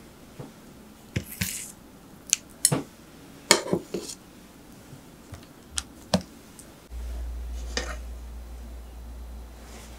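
A small metal spatula clicking and scraping against a wooden cutting board and rustling parchment paper as soft steamed sweet potato slices are laid down, in scattered light clicks and taps. From about seven seconds in a steady low hum sets in.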